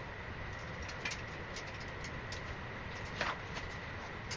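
Two light clicks from small fittings being handled, about a second in and again a little after three seconds, over a steady faint hiss with a thin high whine.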